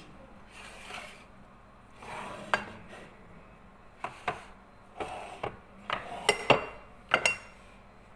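Tin cans and glass jars being shifted on a pantry shelf: a scatter of sharp knocks and clinks as they touch each other and the shelf, the loudest about six and a half seconds in, a few with a brief metallic ring.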